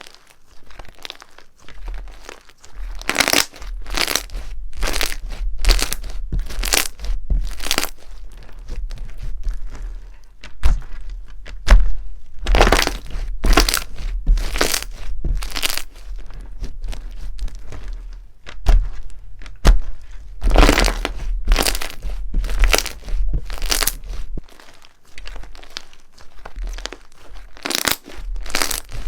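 Crunchy slime being squeezed and pressed: a run of crackling crunches, about one or two a second, in bursts with short pauses between them.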